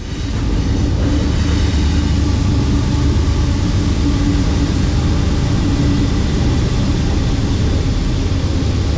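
Steady, loud rushing noise with a deep rumble that starts abruptly and holds level throughout.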